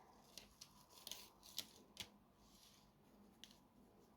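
Near silence, broken by a few faint, short clicks and taps of small objects being handled, most of them in the first two seconds.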